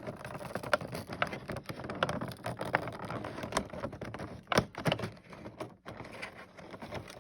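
Cardboard of an advent calendar being ripped and prised at by hand: dense crackling and crinkling with many sharp clicks, the loudest a snap about four and a half seconds in.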